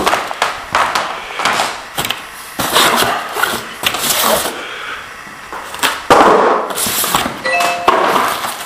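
Cardboard packaging being handled and pulled out of a box: a run of irregular scraping and rustling, with a short ringing clink near the end.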